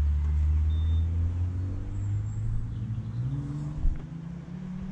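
Renault Mégane RS's turbocharged four-cylinder engine, heard through its Akrapovič exhaust, running at low revs with a strong low note that rises gently in pitch about three seconds in. A short knock sounds just before the end.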